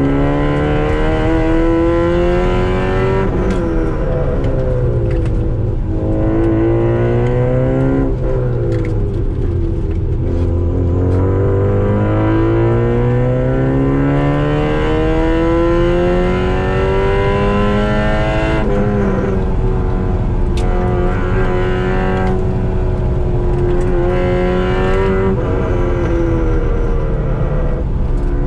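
Car engine heard from inside the cabin, driven hard on a tight track. Its pitch climbs under acceleration and drops sharply several times at gear changes and lifts for corners.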